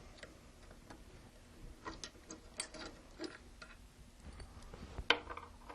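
Scattered light metal clicks and taps of an Allen wrench and bolts being worked loose on the control-panel bracket of an SWF embroidery machine's arm. There are a few sharp ticks in the middle and one more near the end.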